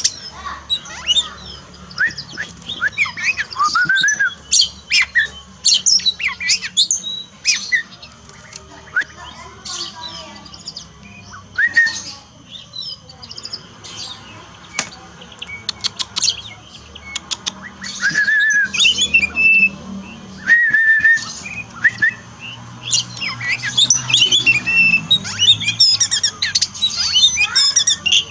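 Songbird singing a long, varied song of sweeping whistles, trills and sharp rapid chirps, busiest at the start and the end, with a run of quick clicking notes past the middle, the song used to train a kacer (oriental magpie-robin).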